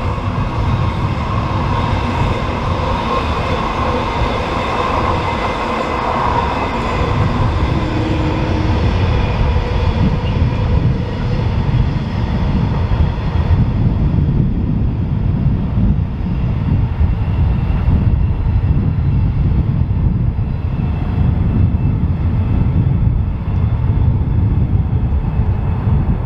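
Electric freight train rolling past on curved track: a steady low rumble with several steady high whining tones over it, the high tones fading about halfway through.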